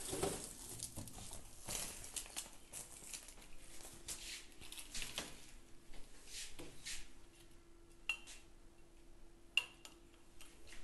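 Kitchen handling noises: short rustles and scrapes, then two light metallic clinks about eight and nine and a half seconds in, over a faint steady hum.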